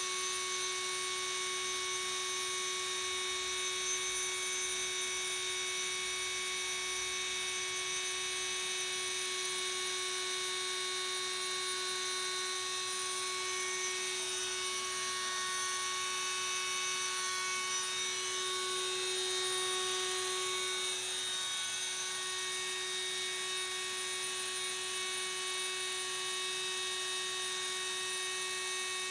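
Small high-speed electric rotary tool, mounted on an industrial robot arm as a milling spindle, running with a steady high-pitched whine as it mills a block, with a brief swell about two-thirds of the way through.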